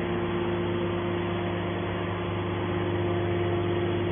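Metal scrap baler's power unit running with a steady machine hum and a constant mid-pitched tone.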